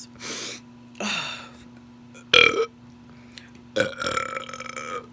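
A person burping several times in a row. The loudest, a short burp, comes about two and a half seconds in, and a longer drawn-out burp follows near four seconds.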